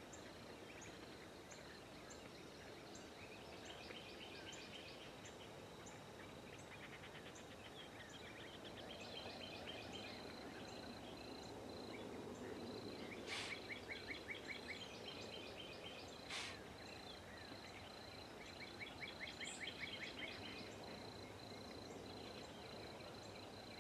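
Quiet outdoor morning ambience of wild birds and insects: several bouts of rapid trilled bird calls, over a steady pulsing high buzz and faint regular high ticks. Two sharp clicks stand out, about halfway through and a few seconds later.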